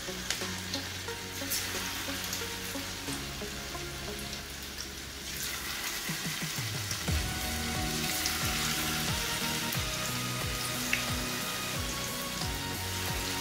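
Batter-coated bitter gourd rings deep-frying in hot oil: a steady sizzle and bubbling that grows louder about halfway through, with background music over it.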